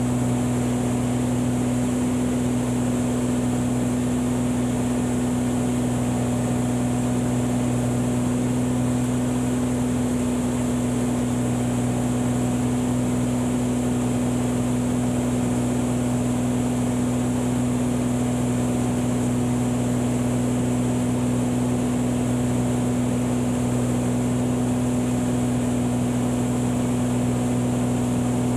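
Beechcraft Bonanza V35B's six-cylinder piston engine and propeller droning steadily in flight, heard inside the cabin: a constant low hum with airflow noise and no change in power.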